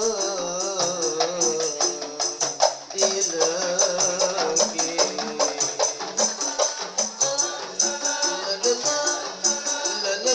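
Qasidah music: hand-held frame drums and tambourine jingles beaten in a fast, dense rhythm under a stepping melody, with a sung line at the start.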